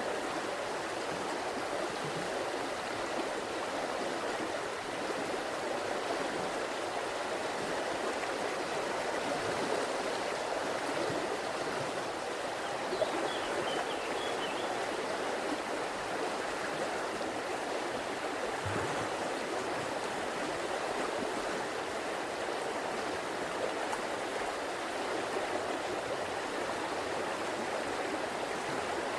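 River water flowing over rocks, a steady even rushing and babbling that holds constant throughout.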